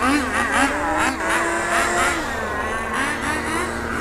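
Small nitro (glow-fuel) RC car engines running: one revving up and down in quick blips while another holds a steady note underneath. The engines are still being tuned and run a little rich.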